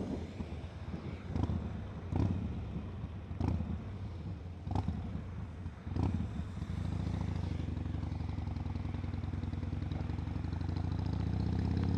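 Harley-Davidson motorcycle riding in heavy rain: the engine runs under a rough rush, broken by sharp knocks about every second and a half over the first half. From about halfway the engine note steadies, then rises in pitch and grows louder near the end as the bike speeds up.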